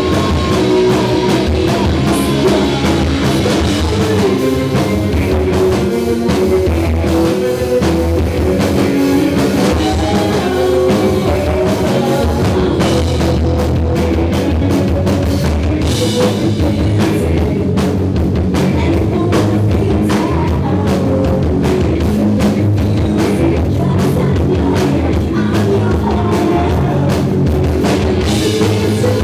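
Grunge/punk rock band playing live: electric guitars and a drum kit driving steadily and loudly, with a woman singing over them.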